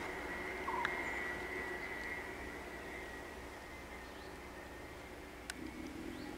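Quiet roadside outdoor ambience: a steady high-pitched tone that slowly fades, a short chirp about a second in, and a couple of faint clicks.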